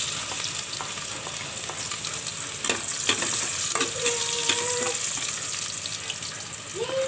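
Minced garlic and onion sizzling steadily in hot oil in a stainless steel pot, stirred with a spatula that clicks against the pot a few times around three seconds in.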